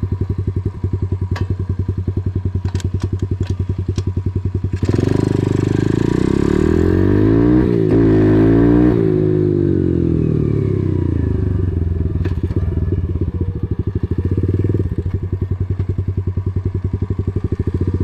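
KAYO TD125 dirt bike's 125cc single-cylinder four-stroke engine being ridden, putting along at low speed. About five seconds in the throttle opens and the engine note rises and gets louder, then after a few seconds it eases back to a steady low-speed putt.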